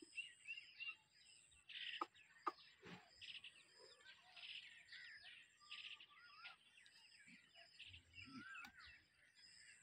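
Faint chorus of small birds chirping and twittering without a break, with a few sharp clicks in the first few seconds.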